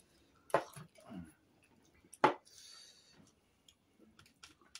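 Tableware clinking during a meal: two sharp clinks about a second and a half apart, the second louder, with faint eating noises in between.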